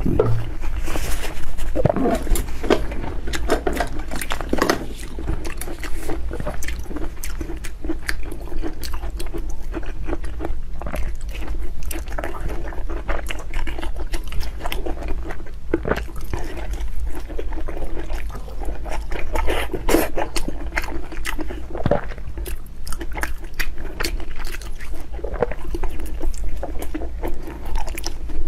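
Close-miked eating: a person chewing and biting food, with many irregular wet mouth clicks and smacks, over a steady low hum.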